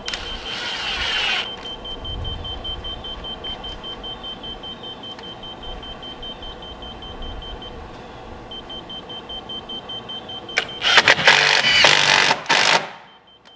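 A cordless power tool, most likely a drill or driver sending a screw into a wood form board, runs in a short burst at the start and again for about two seconds near the end, which split the board a little. Between the bursts a steady engine-like hum carries on with a faint repeating high beep.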